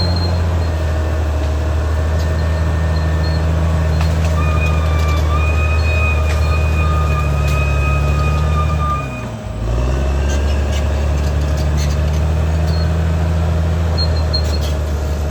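Caterpillar D6R XL bulldozer's diesel engine running steadily under load, with a high thin squeal over it for several seconds midway. About nine seconds in, the engine note briefly drops and then comes back.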